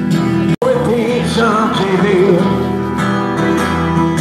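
Street busker singing with an acoustic guitar. The song breaks off for an instant about half a second in.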